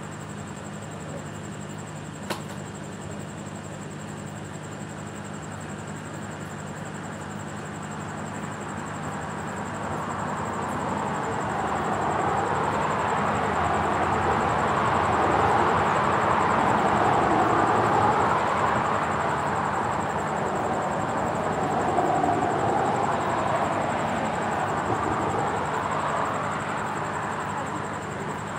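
Cars passing on a street below, their tyre and engine noise swelling to its loudest about halfway through and easing off near the end, over a steady low hum. One short click about two seconds in.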